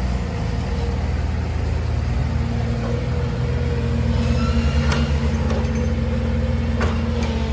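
Heavy machinery's engine running steadily, with a couple of short sharp clanks about five and seven seconds in.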